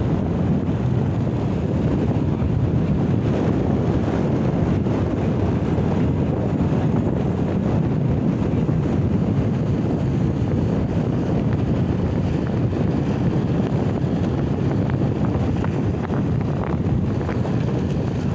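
Steady wind rushing and buffeting over the microphone of a moving motorcycle, a constant low rumble throughout.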